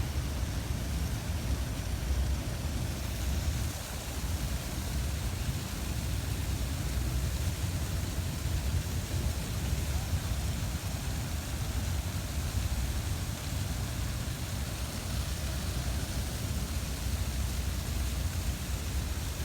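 Slow-moving freight train rolling past, heard as a steady low rumble with a hiss over it.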